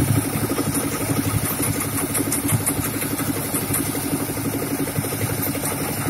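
Engine of a portable concrete mixer running steadily at idle-like speed, with an even rapid chugging.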